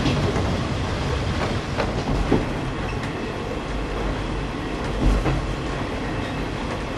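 KiHa 20 diesel railcar running along the line: a steady rumble of engine and wheels, with a few irregular clacks of the wheels over rail joints.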